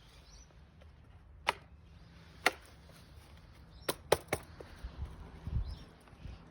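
Five sharp knocks or clacks: two single ones about a second apart, then three in quick succession, over a faint outdoor background. The chainsaw is not running.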